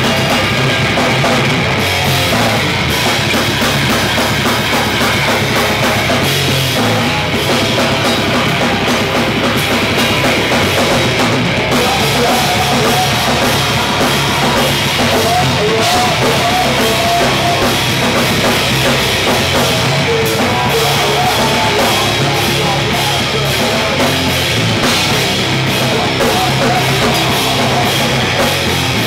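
Live hardcore punk band playing loud: distorted electric guitars and bass over a fast drum kit, with shouted vocals into the microphone.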